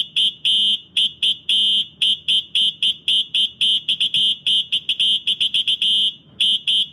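Space Age Electronics HA24D fire alarm horn sounding its high-pitched electronic tone in a fast, irregular run of short and longer blasts. It pauses briefly about six seconds in, then carries on.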